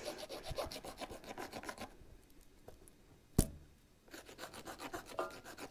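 Steel knife blade scraped crosswise over dry wood in quick rasping strokes, shaving fine tinder scrapings. The strokes stop about two seconds in, a single sharp knock follows, and the scraping starts again near the end.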